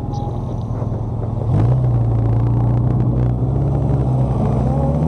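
Honda air-cooled inline-four motorcycle engine running, getting louder about a second and a half in as it pulls away, with its pitch starting to rise near the end as it accelerates.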